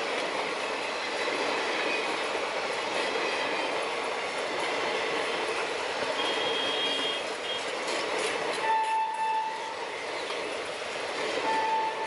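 Indian Railways express passenger coaches rolling past at speed, wheels running and clattering over the rails. Near the end, the train's WAP7 electric locomotive sounds two short horn blasts from up ahead, the first lasting under a second.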